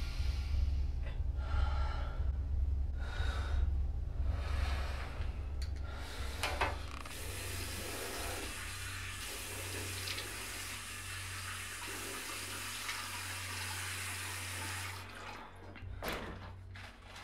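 A person breathing hard in heavy, rhythmic breaths, about one a second. About seven seconds in, a washroom sink tap is turned on and water runs into the basin until it is shut off near the end, over a low hum.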